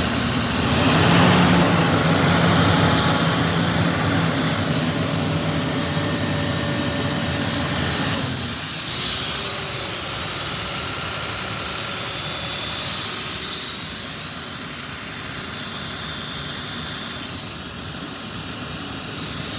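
John Deere diesel engine of an Atlas Copco XATS750JD portable air compressor running steadily, then stopping about eight seconds in. A steady hiss carries on after it.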